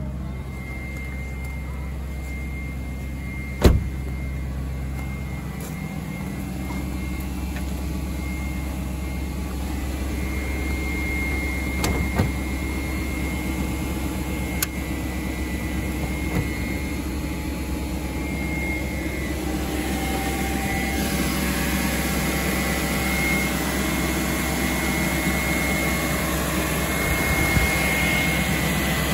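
BMW E38 740i's 4.4-litre V8 idling after a cold start, with a steady high whine from the emission-control secondary air pump blowing air in while the engine is cold; the whine is normal. A sharp click about four seconds in, and a rushing hiss that grows louder in the second half.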